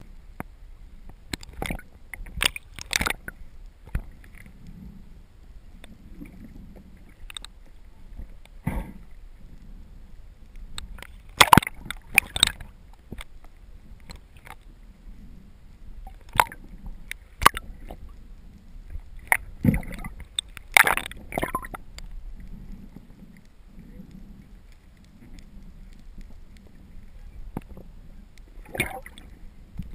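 Underwater sound heard through a waterproof action-camera housing: a low, uneven water rumble broken by irregular sharp clicks and knocks. The loudest knocks come about eleven to twelve seconds in and again around twenty seconds in.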